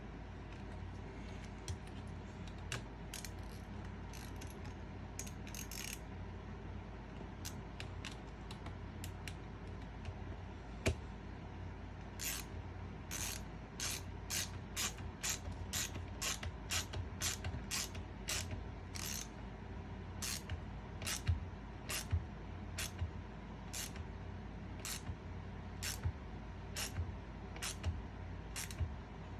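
Ratchet tool clicking in short strokes, about two clicks a second for most of the time, as the 8mm screw holding the vent window clamp is driven in.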